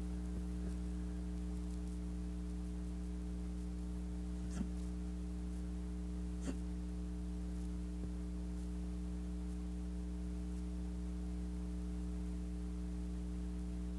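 Siberian husky hiccuping twice, two short faint hics about two seconds apart, over a steady electrical hum.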